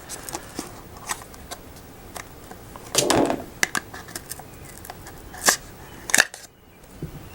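Cardboard packaging being handled and opened by hand: scattered taps and clicks, with a short rustle about three seconds in and two sharper clicks near the end.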